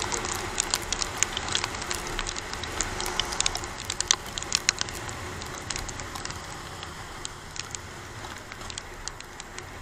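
Raindrops ticking and crackling on a motorcycle-mounted camera in the rain, over a steady rush of wind and wet-road spray. The clicks come thickest in the first half and thin out toward the end.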